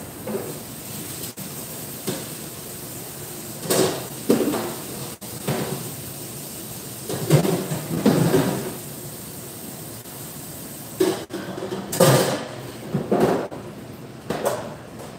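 Intermittent clatter and rustling of food preparation at a stainless-steel kitchen counter, a handful of short irregular knocks and handling noises over a steady background hiss.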